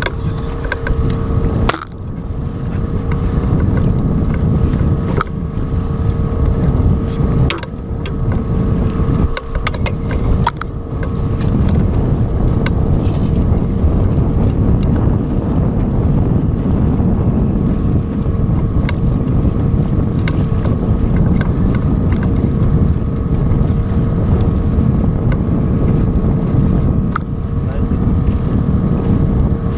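Small outboard motor running steadily at trolling speed, a constant hum, with wind rumbling on the microphone. A few sharp clicks and knocks come in the first ten seconds or so.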